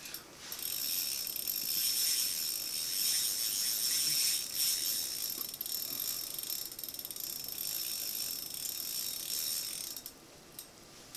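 Spinning reel on an ice-fishing rod giving a fast, even ratcheting whir while a hooked fish is fought. It stops about a second before the end.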